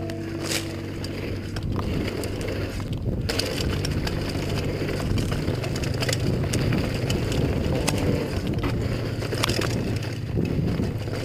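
Mountain bike riding fast down a dirt singletrack: tyres rolling and crunching over dirt and loose stones, with the bike rattling and knocking sharply over bumps.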